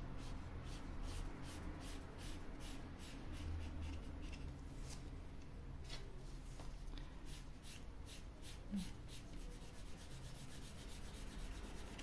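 Brush-tip felt marker scratching over bare wood in quick back-and-forth colouring strokes, several a second, getting faster near the end. The bare wood soaks up the ink. A steady low hum runs underneath.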